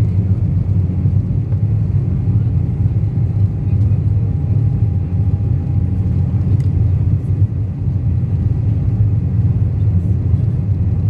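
Cabin noise of an Embraer 195 climbing out just after takeoff: a steady low roar of its GE CF34-10E turbofan engines and the airflow, heard from a seat over the wing.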